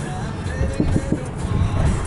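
Music from a car radio over the low rumble of the moving car, heard inside the cabin.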